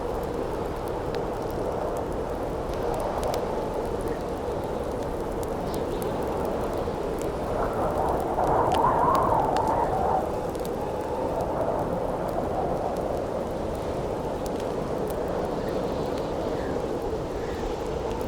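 Wind blowing in a steady rush, swelling into a louder gust about halfway through, over the light crackle and snapping of a wood campfire.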